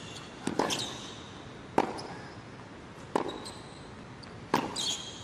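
Tennis rally on a hard court: sharp racket-on-ball hits about every second and a half, with short high squeaks of players' shoes on the court.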